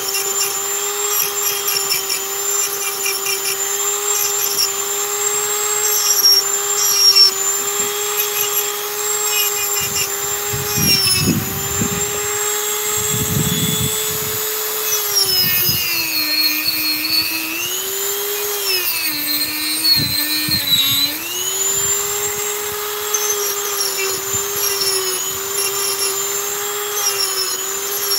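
Dremel rotary tool running at a steady high whine as its bit carves wood, with rough grinding bursts around ten to fourteen seconds in. Between about fifteen and twenty-one seconds in, its pitch sags twice as the bit is pressed into the wood, then climbs back to full speed.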